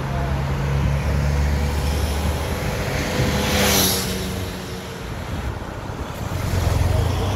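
Race convoy vehicles driving past close by, engines running with tyre noise: a van's pass swells to the loudest moment just past halfway. A police motorcycle passes close near the end.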